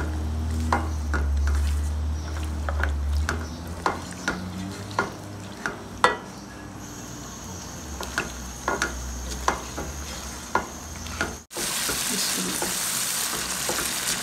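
Mutton and tomatoes frying in oil, stirred with a spatula: frequent knocks and scrapes against the pan over a steady sizzle. This is the stage where the meat is fried down in oil after the cooking water has dried off. After a short break about eleven seconds in, the sizzle is brighter and louder.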